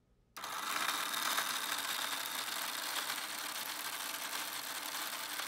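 Small battery-powered electric motor spinning a 3D-printed plastic wheel, switched on about half a second in and then running steadily with a faint high whine.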